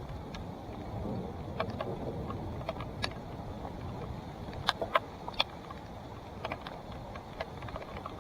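Salsa Timberjack mountain bike rolling over a dirt trail: a steady rumble of tyres and air, broken by sharp clicks and rattles from the bike, with a cluster of louder knocks about five seconds in.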